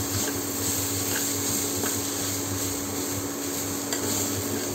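A spatula stirring and scraping potato masala in a pan, with a few light clicks against the pan, over a steady hum from the induction cooktop.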